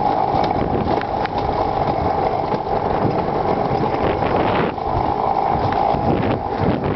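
Alpine coaster sled running fast down its steel tube rails: a continuous rolling rumble with a steady whine, which dips briefly about two-thirds of the way through.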